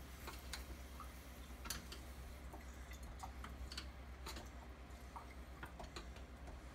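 Faint, scattered light clicks and ticks of a tool working against a sink faucet handle as it is pried loose, over a low steady hum.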